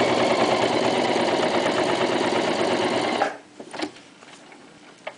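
Toyota FSG325 sewing machine running steadily, stitching through six layers of vinyl, then stopping abruptly a little over three seconds in. A few light clicks follow.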